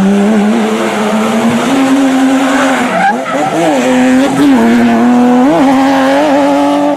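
Racing car engine sound effect: an engine running at high revs with a steady pitch that steps up a little, then dips and climbs back several times in the second half, as with lifting off and shifting.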